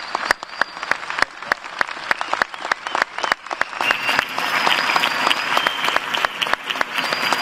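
Audience applauding, with sharp individual claps close to the microphone over the wash of a large crowd clapping; the applause grows fuller about four seconds in.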